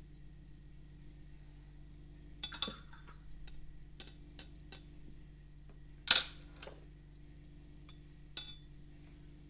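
A paintbrush clinking against the rim of a rinse cup, about eight short, sharp clinks at uneven intervals, loudest about six seconds in: the brush being rinsed and tapped off between colours.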